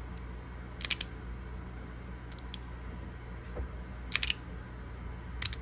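Magnetic fidget slider's resin-printed plates clicking as the magnets snap them into place, a few sharp clicks spaced a second or more apart, some in quick pairs.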